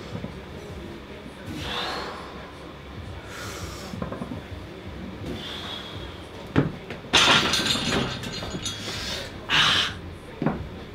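A lifter's sharp breaths between barbell back-squat reps, then the loaded barbell racked into the squat rack's hooks with a metal clank and a clattering rattle about seven seconds in, followed by another hard breath.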